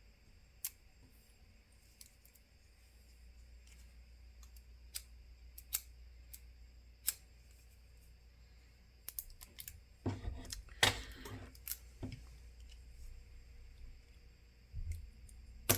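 Scattered light clicks and taps of small tools and Kapton tape being handled on a workbench, with a short crackling rustle of tape about ten seconds in.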